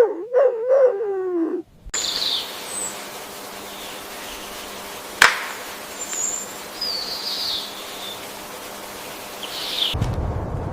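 A fox gives a wavering whine of about a second and a half that falls in pitch. It is followed by an outdoor hiss with a few faint high bird chirps and one sharp click about five seconds in. Near the end a low rumbling noise comes in.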